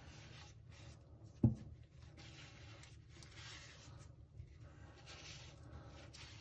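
Paper towel dampened with alcohol being rubbed over metal jar lids in soft, faint swishes. One sharp knock about a second and a half in, the loudest sound.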